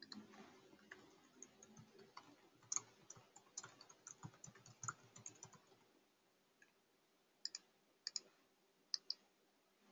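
Faint typing on a computer keyboard: a quick, irregular run of key clicks as a sentence is typed, then three quick pairs of clicks near the end.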